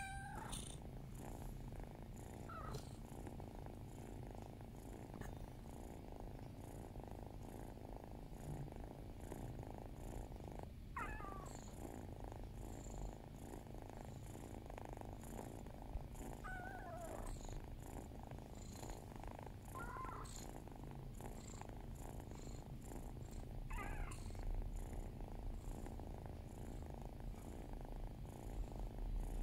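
Domestic cat purring steadily while being stroked, broken by about six short, soft meows: affectionate meows asking to be petted.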